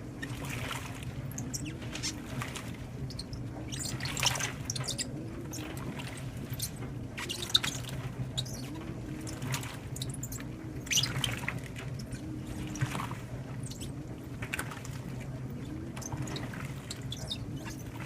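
LG top-load washer agitating a load of towels and shoes on its Heavy Duty cycle: water sloshing and splashing every second or two over a steady motor hum, with a tone that rises and falls as the wash motion reverses.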